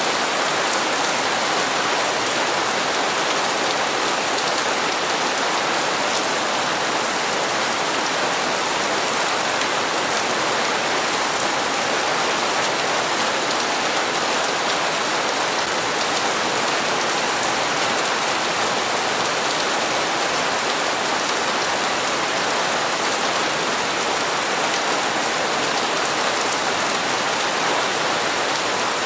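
Steady rain falling and pattering on hard surfaces, with faint scattered drop ticks in an even hiss.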